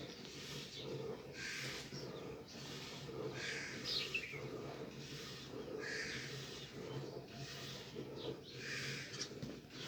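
Buffalo being milked: short hissing spurts of milk into a pail, repeating about once a second.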